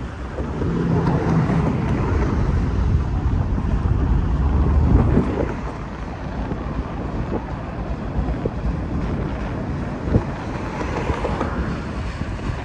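Norfolk Southern freight train's autorack cars rolling past below with a steady rumble and a few sharp knocks. Wind buffets the microphone, heaviest in roughly the first half.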